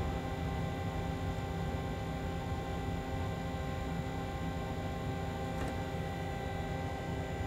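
Steady hum inside the cab of a standing locomotive: its running equipment holds several fixed tones over a low rumble, with one faint tick about five and a half seconds in.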